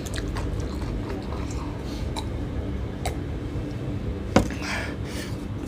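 Eating noises over a steady low hum: a few soft mouth or utensil clicks, then a sharp knock a little past four seconds in, followed by a brief rustle.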